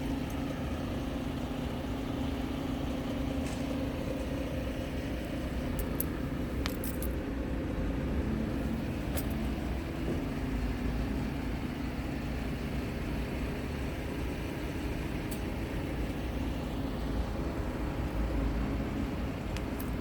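Scania R tractor unit's diesel engine running at a steady speed, an even low hum that holds its pitch, with a few faint clicks in the middle.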